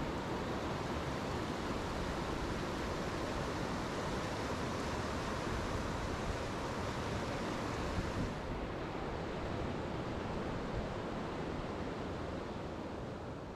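River rapids rushing over rock ledges: a steady, even rush of whitewater. About eight seconds in it turns a little duller and quieter.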